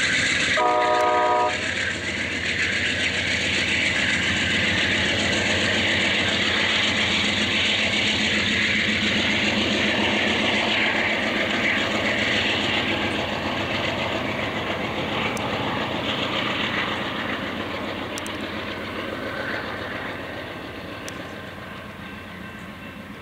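Amtrak GE P42DC diesel locomotive pushing a departing passenger train under power, its engine and the wheels rolling over the rails making a steady loud noise that fades gradually as the train pulls away. A short horn blast sounds about a second in.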